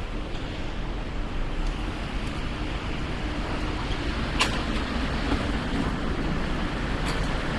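City street traffic: a steady low rumble of nearby vehicle engines and road noise, with one sharp click about four and a half seconds in.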